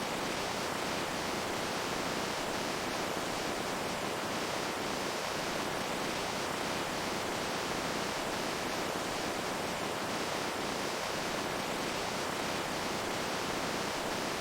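Water flowing steadily: an even, unbroken rushing hiss with faint small splashes through it.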